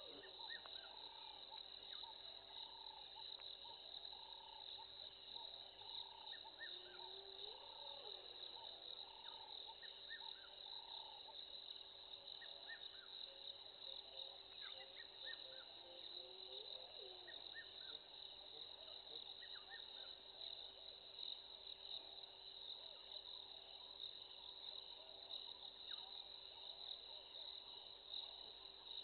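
Faint steady chorus of crickets and other insects. In roughly the first eleven seconds a call repeats about twice a second, with a few short chirps scattered throughout.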